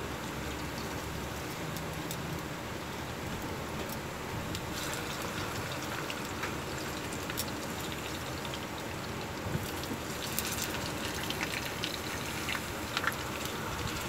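Saba banana slices frying in hot oil with brown sugar, sizzling steadily with small crackles and pops. Sharper clicks and pops come more often about two-thirds of the way in, as tongs turn the pieces in the pan.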